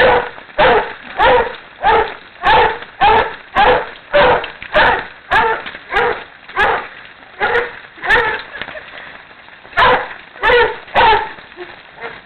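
A dog barking over and over, about one bark every half second or so. There is a short break about two thirds of the way through, then the barking resumes.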